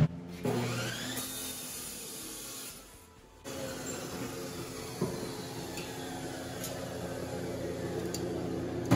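Abrasive chop saw cutting off a piece of steel bar stock, then its motor winding down with a slowly falling whine.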